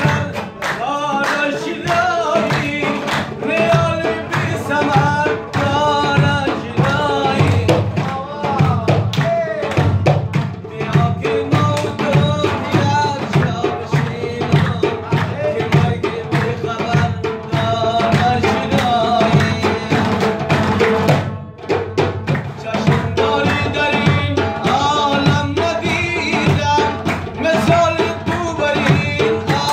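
Live Afghan Uzbek folk music: a man singing over plucked long-necked lutes, including a dambura, with a hand drum beating a fast, steady rhythm and hand clapping. The music drops away briefly about two-thirds of the way through, then carries on.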